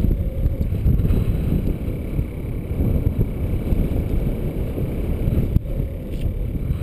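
Wind noise from the airflow of a paraglider in flight buffeting the camera microphone: a steady low rumble, with a brief click about five and a half seconds in.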